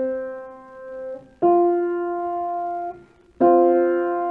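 Piano playing an interval for an ear-training test: a lower note already ringing, a higher note struck about a second and a half in, then both notes struck together and held near the end.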